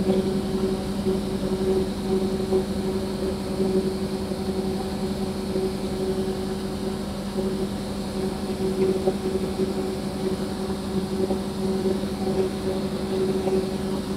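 Diesel-electric locomotive of the SRT QSY class running with a steady, unchanging engine hum as it moves out to make up a train.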